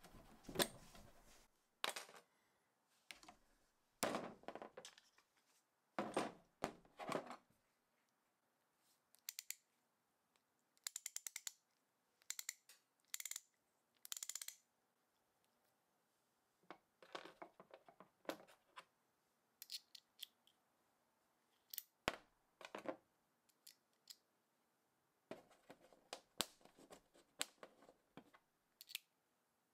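Hand-held vintage socket ratchet and small metal parts being handled on a workbench: scattered clinks, taps and knocks, with a few short runs of rapid, even ratchet clicking in the middle.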